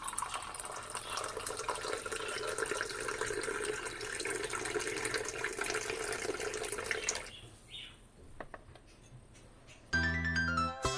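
Hot spiced coffee poured in a steady stream from a porcelain pot into a ceramic cup, splashing as the cup fills, stopping about seven seconds in. Near the end, plucked-string music begins.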